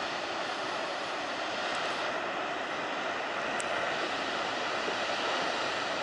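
Ocean surf breaking: a steady rush of heavy waves, swelling slightly in the middle, with a few faint high ticks.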